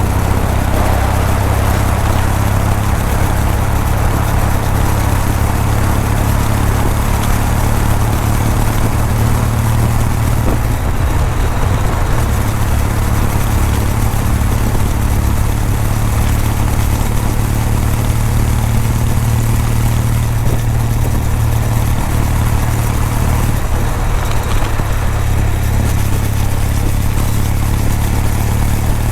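Kawasaki W800's air-cooled 773 cc parallel-twin engine heard through its exhaust while the motorcycle is ridden at a steady pace. The engine note shifts briefly about ten seconds in.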